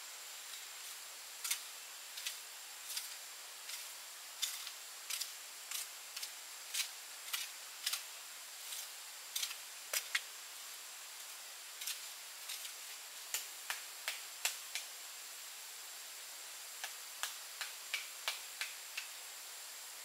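A string of sharp, light clicks or snaps at irregular intervals, often in quick pairs, with a short pause about three quarters of the way through. Under them run a steady hiss and a thin, high, steady whine.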